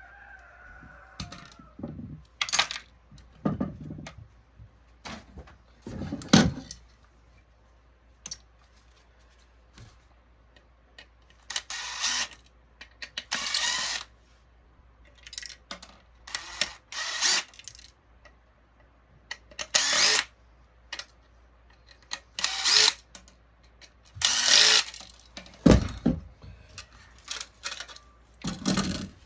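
Working apart the metal housing of an electronics panel: short irregular bursts of tool noise, with clinks and knocks of metal parts. Two louder knocks come at about six seconds and near the end.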